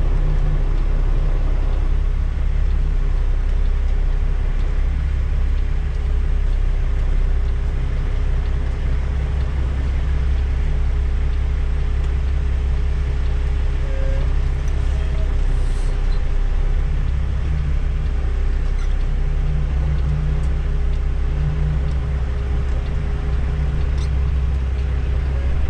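Semi truck's diesel engine running steadily, heard from inside the cab: an even low drone with a faint steady tone above it.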